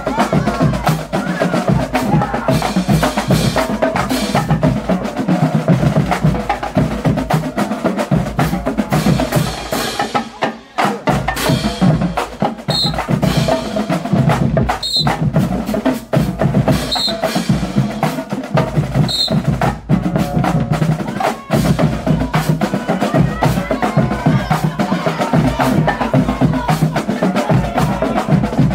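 Marching band drumline of snare drums and bass drums playing a fast, continuous cadence, with a brief break about ten seconds in.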